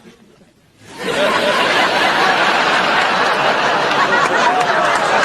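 An audience laughing loudly, many voices together, starting about a second in after a brief near-quiet pause and holding steady.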